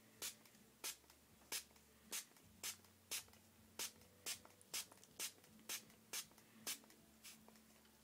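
Quick, short scratchy strokes of brushing through a plush lion toy's frizzy synthetic mane, evenly paced at about two a second, to work the curls out.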